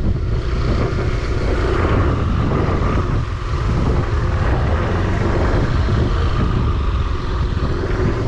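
Motorbike running steadily along a road, with the engine and a heavy rush of wind over the microphone.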